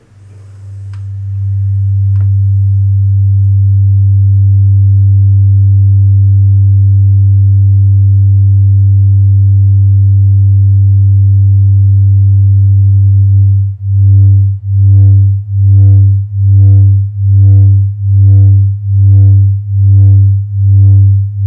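Low electronic drone from a feedback loop through a matrix mixer and a guitar pedal, with a Pure Data patch's signal injected into it. It fades in over the first couple of seconds, holds steady with fainter higher tones above, then about fourteen seconds in starts throbbing evenly, about one pulse a second.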